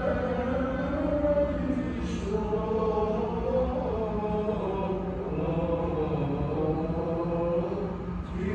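Byzantine chant of the Greek Orthodox vespers service: a sung, melismatic line that moves continuously up and down, with a steady low tone held underneath it and a brief lull near the end.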